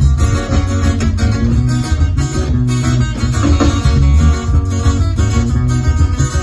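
A band playing with guitar and a strong pulsing bass line, with no break in the music.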